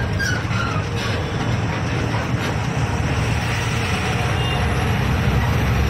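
Truck engine running and road noise, heard from inside the cab while driving, slowly getting a little louder.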